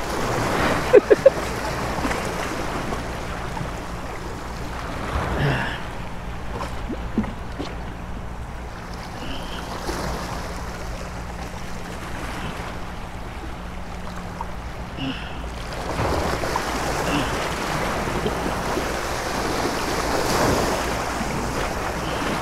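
Small waves washing and splashing against granite jetty rocks, surging louder a few times, with wind on the microphone. A few sharp clicks come about a second in.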